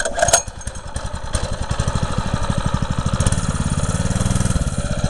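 A Greyhound Honda-clone 6.5 hp single-cylinder OHV engine on a minibike is pull-started by its recoil starter and catches within the first second. It then runs steadily at idle, rising briefly about four seconds in.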